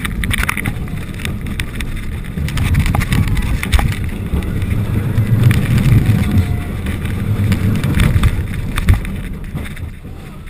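Steel looping roller coaster train racing along its track: a loud rumble of the wheels on the rails mixed with heavy wind buffeting the rider-mounted camera's microphone, easing off near the end.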